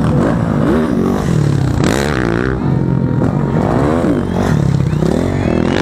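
Motocross bike engines revving up and backing off again and again as riders work the throttle around the dirt track, over a steady low rumble of more bikes.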